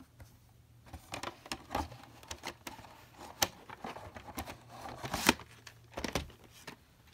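A VHS cassette and its box being handled: irregular plastic clicks and rustling, scraping slides as the tape goes in and out of its sleeve, with a sharper knock a little after five seconds in.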